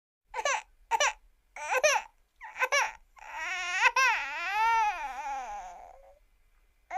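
A cartoon character crying: four short sobs about half a second apart, then one long wail of about three seconds whose pitch rises and falls before trailing off.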